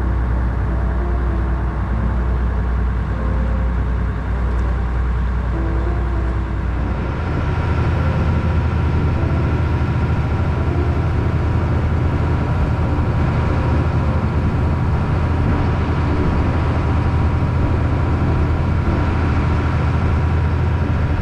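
A boat's engine runs steadily underway, with water rushing past the hull. About seven seconds in the engine note rises and gets louder, as the boat picks up speed.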